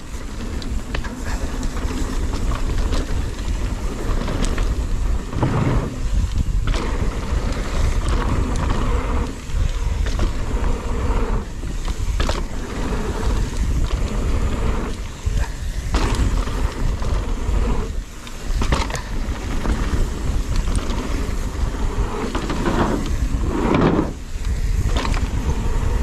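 Nukeproof Mega 290 mountain bike ridden downhill on dirt trail: steady tyre and wind rumble with frequent sharp knocks and rattles from the bike over rough ground.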